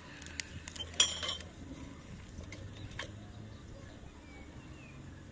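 A single sharp clink that rings briefly, like metal or crockery being knocked, about a second in, with a few faint clicks from the crackling wood fire around it.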